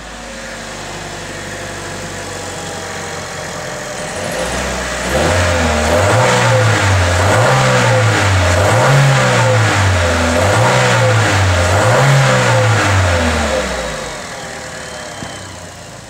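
Car engine idling, then revved about five times in a row, each rev rising and falling, before dropping back toward idle near the end. With each rev the coolant shoots up in the reservoir, which the mechanic takes for a blown head gasket.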